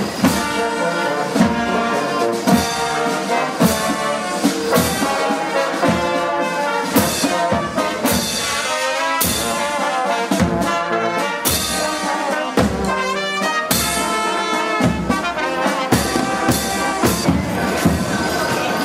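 Brass band playing a tune, trumpets and trombones over a steady beat.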